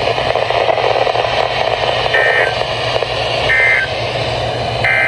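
NOAA Weather Radio end-of-message signal: three short warbling bursts of SAME data tones, about a second and a half apart, over steady radio static and a low hum. The bursts mark the end of the broadcast alert message.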